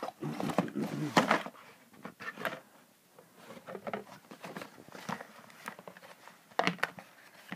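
Cardboard game box being handled: irregular scraping, rustling and knocks of cardboard as the inner tray and contents are slid out, loudest about a second in and again near the end.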